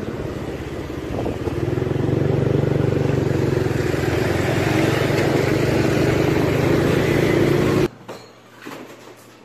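Motorcycle running on the road, heard from the pillion seat with wind and road noise; it grows louder about a second and a half in, holds steady, then cuts off suddenly near the end.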